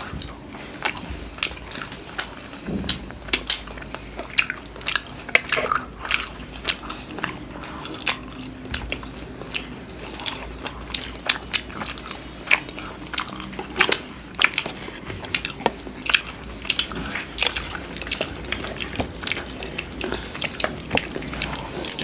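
Close-up eating sounds: biting and chewing food, with many irregular small crisp clicks and mouth smacks.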